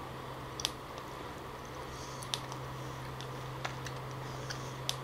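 Quiet eating sounds of wild jackfruit flesh taken off a spoon: a few scattered sharp clicks and faint wet mouth noises, over a steady low hum.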